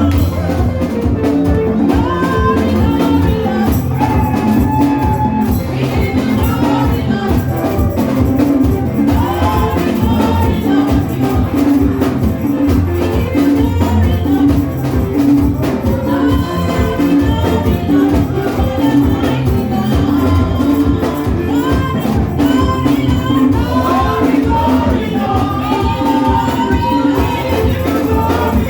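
Gospel praise music with a steady beat, bass and percussion, and voices singing over it.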